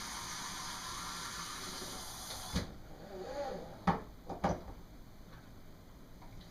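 Kitchen tap water running in a steady stream, shut off abruptly a little over two seconds in, followed by two sharp knocks of dishes being handled.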